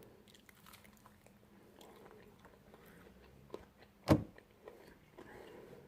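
A person chewing a fried chicken wing close to the microphone: soft, scattered mouth clicks and chewing noises, with one louder short mouth sound about four seconds in.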